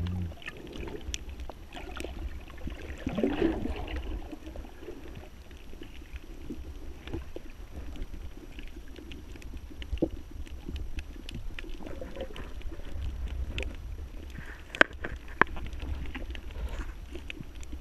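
Water moving around the diving camera: a steady low rumble with scattered sharp clicks and crackles, and two louder clicks close together about fifteen seconds in.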